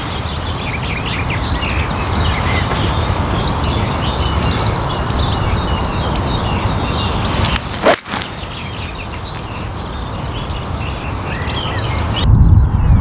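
Small birds chirping and singing steadily in the background, with a single sharp click of a golf iron striking the ball about eight seconds in. Near the end a loud low wind rumble on the microphone takes over.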